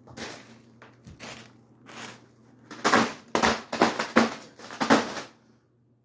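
Foil (Mylar) birthday balloon being hit and crumpled by the spinning ceiling fan blades: a string of crinkling smacks, sparse at first and then coming fast and loud. They stop abruptly a little after five seconds in.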